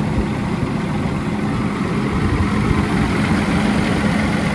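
Cummins ISX inline-six diesel engine idling steadily, just back running after its exhaust manifold was replaced.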